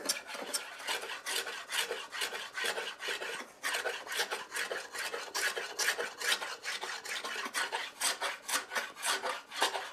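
Small, sharp block plane taking quick short strokes along the edge of a round pallet-wood board, cutting a bevel. It makes a run of dry scraping swishes, about three or four a second, with a brief break about three and a half seconds in.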